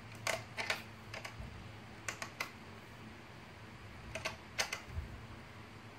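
Scattered light plastic clicks and taps, in small groups of two or three, from a plastic toy being taken apart with a small screwdriver.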